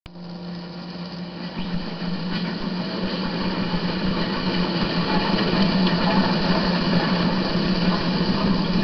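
A steady mechanical running noise with a constant low hum, fading in over the first two or three seconds and then holding level.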